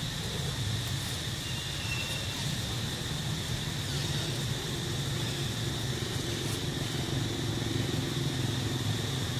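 Steady outdoor background: a constant low hum under an even high-pitched drone, with no distinct events.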